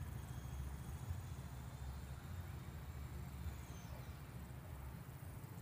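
Faint outdoor dusk ambience: insects trilling in a thin, steady high tone over a low, steady rumble.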